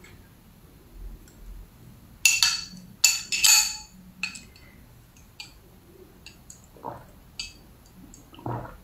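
A drinking straw clinking against a glass as it is pushed into the glass of drink: a cluster of bright, ringing clinks about two to three and a half seconds in, then lighter ticks. Near the end come two short sips through the straw.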